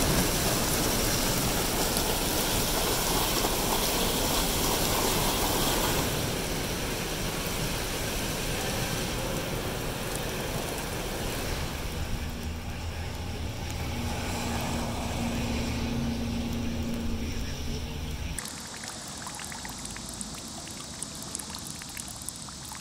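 Water sounds in a run of short scenes: water gushing from a pipe onto wet pavement, then steady rain over a wet street, then from about eighteen seconds in a quieter trickle with scattered drips.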